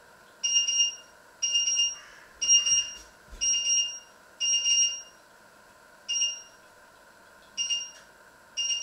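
An electronic beeper sounding eight beeps of about half a second each at a fixed, shrill pitch. The first five come about a second apart; the last three are spaced unevenly.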